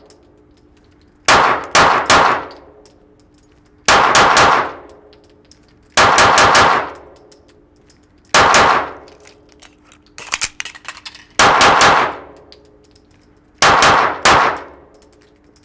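Pistol shots fired in quick pairs, about half a second apart, with a pause of a second or two between pairs, each shot ringing out with a reverberant tail off the walls of an indoor range. A short run of lighter clicks comes just before the middle pair.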